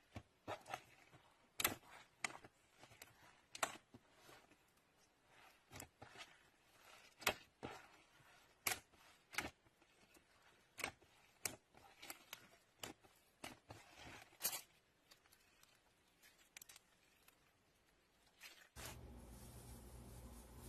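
Glitter slime being squished and poked by hand, giving irregular sharp sticky clicks and pops about one a second. Near the end the clicks stop and a steady low hum takes over.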